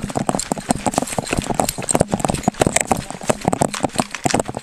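Running footsteps on dry dirt and brush, heard from a chest-worn body camera that jolts with each stride: quick, heavy footfalls, several a second.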